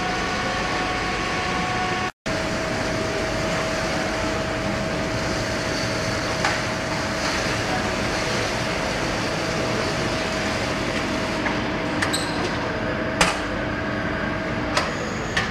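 Steady mechanical hum of an automated bakery line's conveyors and loading station, with a constant whine over it. The sound drops out briefly about two seconds in, and a few sharp clicks come near the end.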